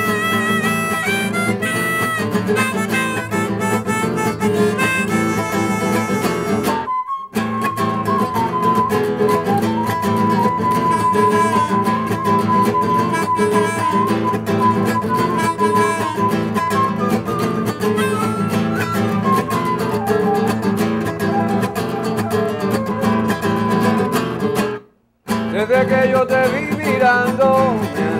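Instrumental folk music: a nylon-string acoustic guitar strummed under a harmonica, with a flute holding a long melody line through the middle. The music cuts out briefly twice, about seven seconds in and again near the end.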